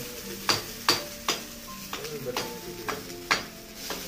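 Metal spatula stirring rice in a wok on a gas stove, clinking and scraping against the pan about seven times at irregular intervals over a steady sizzle of frying.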